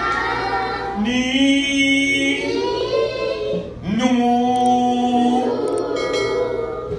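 A man and children singing an unaccompanied Arabic alphabet song for the letter nūn, in long held notes: one phrase ends just after the start, a new one begins about a second in and another about four seconds in, each sliding up into its note.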